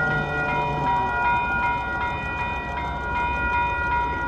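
Railroad crossing bell ringing steadily at an activated crossing gate. A Union Pacific coal train's horn sounds in the first second and fades out.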